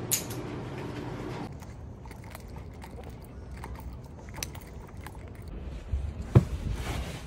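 Light metallic clicking and jingling of a dog's leash clasp and collar hardware as the leash is clipped on and the dog walks, with a few low thumps of handling near the end.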